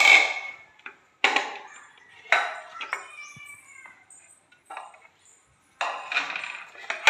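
Plastic dinnerware bowls and a lidded serving dish clacking as they are picked up and set down on a stone floor: four separate clacks in the first five seconds, each with a brief ring.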